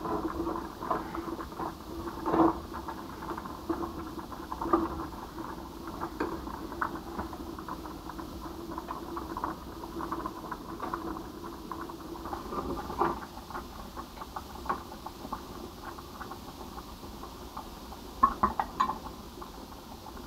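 A pot of potatoes boiling hard on an electric hotplate: a steady bubbling full of small irregular pops and patter. A few louder knocks of a utensil against the enamel pot, with a quick run of them near the end.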